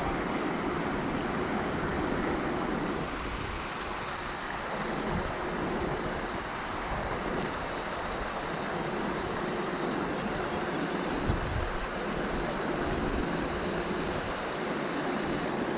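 Steady wind buffeting the microphone: a continuous rushing hiss with an uneven low rumble underneath.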